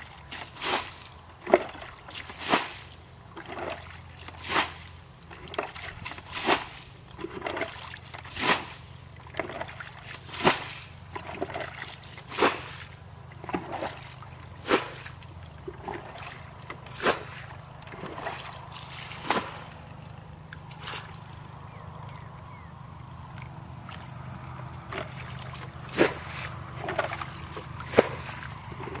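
Muddy pond water being bailed out with a plastic basin to drain the pond for fish: a sharp splash of scooped and thrown water about every two seconds. The splashes pause for a few seconds past the middle, then two more come near the end.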